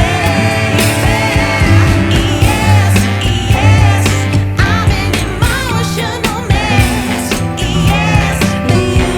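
Background music with a sung vocal line over a steady bass and beat.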